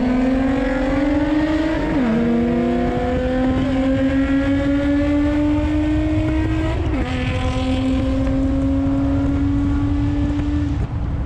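Car engine accelerating hard through the gears: a rising drone that drops in pitch at two upshifts, about two and seven seconds in, and climbs again before easing off near the end.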